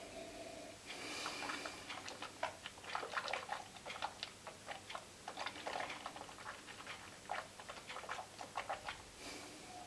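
Mouth sounds of whisky tasting: a short sip, then many small irregular wet clicks and smacks as the whisky is worked around the mouth.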